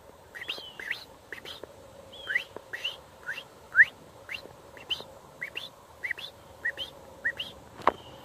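American robin singing: a run of short, clear whistled notes, about two to three a second, some rising and some falling in pitch. A sharp click near the end.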